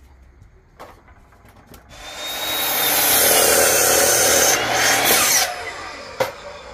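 Ryobi sliding miter saw spinning up about two seconds in with a rising whine and cutting through a pressure-treated board for about three seconds, then switched off and winding down. A sharp knock comes about six seconds in.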